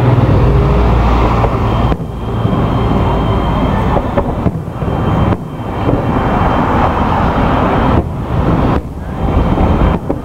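Aerial fireworks shells bursting over a river, heard as a dense, continuous rumble with a few brief lulls.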